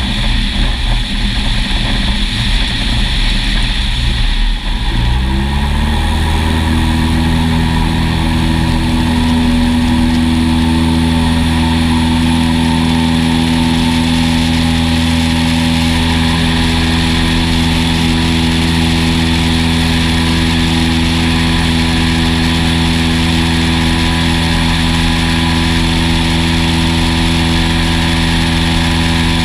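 Cessna 172 SuperHawk's engine and propeller during a touch-and-go: first an uneven, rough noise at low power as it rolls on the grass strip, then about five seconds in the throttle is opened and the pitch rises quickly to a steady full-power drone through the takeoff and climb.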